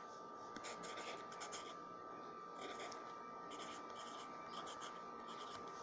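Pencil scratching on paper in short clusters of strokes as letters are handwritten.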